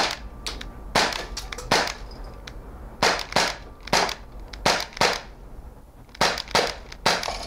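Umarex Walther P38 CO2 full-metal blowback BB pistol firing about eleven quick shots in an irregular string, each a short sharp crack.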